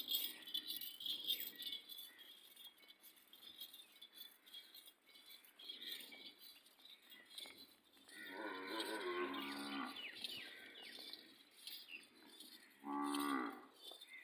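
Cattle mooing: one long moo about eight seconds in and a shorter, louder moo near the end, with bells jingling at the start.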